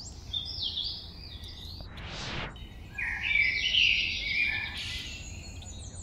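Birdsong ambience: rapid chirping and warbling bird calls, loudest in the middle, over a steady low rumble. A short whoosh of noise swells and fades about two seconds in.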